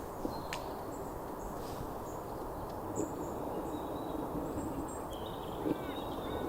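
Outdoor ambience: a steady low background hiss with faint, short, high-pitched bird calls scattered through it.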